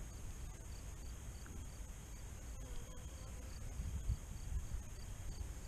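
Insects chirping: a faint steady high trill along with short chirps repeating about three times a second, over a low rumble.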